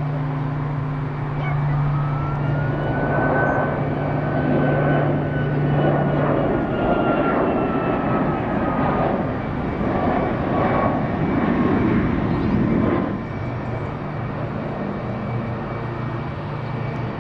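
MC-21 airliner's twin turbofan engines passing overhead in a display flight: a rushing jet noise that swells about two seconds in, carries a high whine slowly falling in pitch, and drops back about thirteen seconds in.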